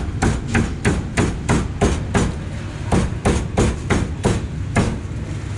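A cleaver chopping roast pork on a chopping block: a steady run of sharp strikes, about three a second, that stops shortly before the end.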